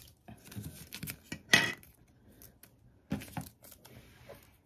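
Hands handling a small drone and its plastic packaging: rustling and crinkling with small clicks and knocks, the loudest a short, sharp crinkle about one and a half seconds in and two knocks around three seconds in.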